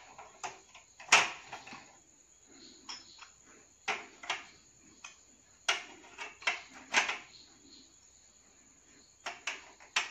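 Telescope eyepieces and a Barlow lens being set into the holes of a tripod's metal accessory tray: a series of sharp clicks and knocks in irregular clusters, the loudest about a second in.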